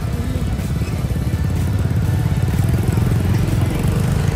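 Motorbike engine running steadily: an even, continuous rumble.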